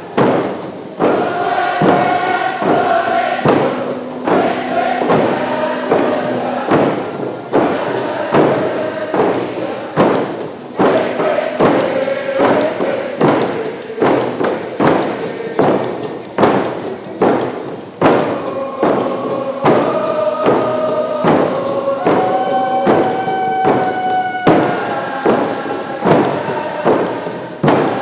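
Many painted Nisga'a hand drums struck together in a steady beat under a large group of voices singing a chant, holding long notes.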